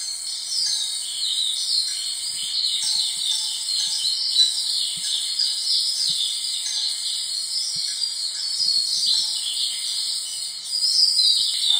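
Dense chorus of rapid, high chirping, crickets and birds, over a steady high hiss: a nature soundscape.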